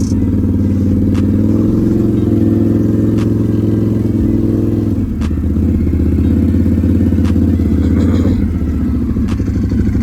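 Can-Am Renegade XMR 1000 ATV's V-twin engine running steadily, just after restarting from an overheat shutdown.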